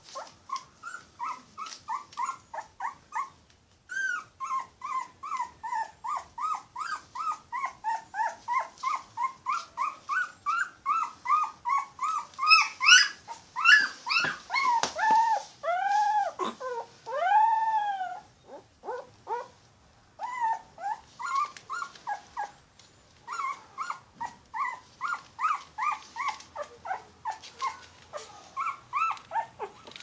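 Yorkshire terrier puppy crying: quick runs of short, high whimpers, about three a second, broken by brief pauses. In the middle the cries grow louder and longer, rising and falling in pitch.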